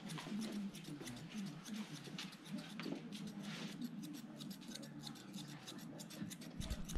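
Grooming scissors snipping through a dog's coat: a quick, irregular run of crisp cuts.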